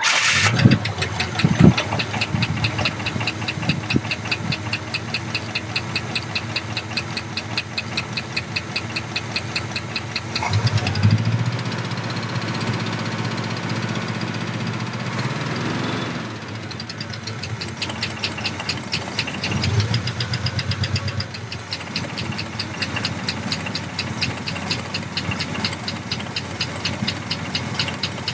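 1967 Chevrolet Impala's 327 small-block V8 running with a steady, rhythmic knocking and tapping from the engine, with brief revs about a third of the way in and again past the middle.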